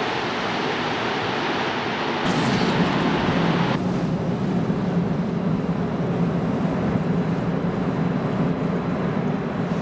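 Steady rushing noise of a rubber-tyred Montreal Metro train running out of the station. About two seconds in, the sound changes suddenly to a deeper, steady rumble that carries on through the station.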